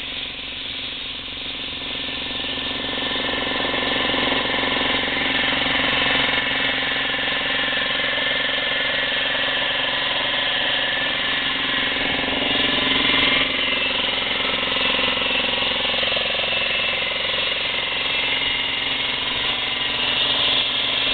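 A DEWALT 15-gallon vertical 200 psi air compressor running, its electric motor and pump working steadily to fill the tank. The running grows louder over the first few seconds, then holds steady.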